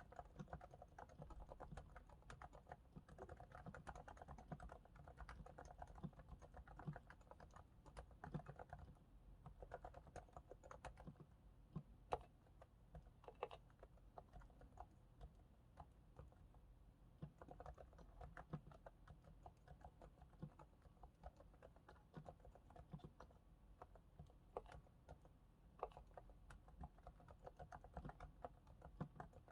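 Realforce R2S keyboard with 45 g silent Topre switches, sliders and stabilizers lubricated with Krytox, typed on steadily: a faint, dense patter of soft, muted keystrokes, with a few sharper strokes about twelve and thirteen seconds in.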